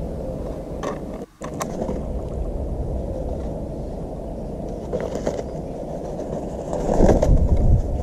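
Steady low outdoor rumble, with a few brief knocks and rustles about a second in, around five seconds, and louder ones near seven seconds.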